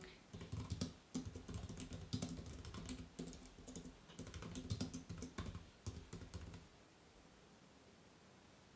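Typing on a computer keyboard: a quick run of key clicks that stops about three-quarters of the way through, leaving faint room tone.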